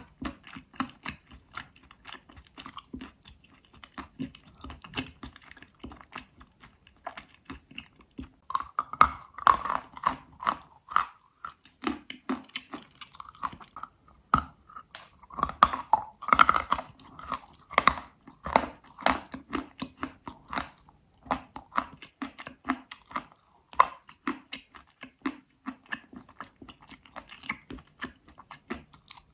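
Someone biting and chewing crunchy pressed edible chalk (Astana chalk) close to the microphone: a dense run of sharp, crisp crunches and crackles. They come thickest and loudest in two spells, about nine and about sixteen seconds in.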